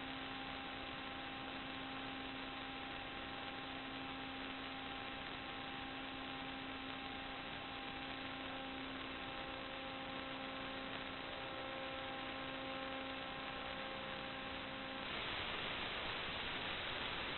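Steady electrical hum and hiss carrying several faint steady tones. About fifteen seconds in the tones drop out and it turns into louder, plain static.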